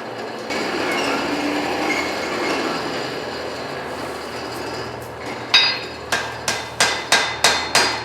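Blacksmith's hammer striking hot steel on an anvil: a quick run of ringing blows, about three a second, starting about five and a half seconds in, drawing out a taper on a forge-welded twist. Before the blows there is a steady rushing noise.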